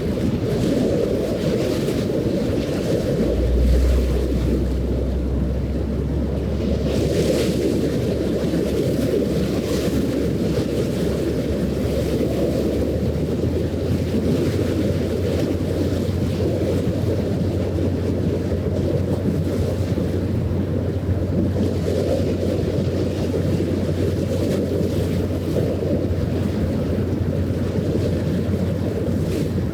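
Wind rumbling on the microphone at the waterside, with the low steady drone of a passing ship's engine coming in a few seconds in and holding to the end.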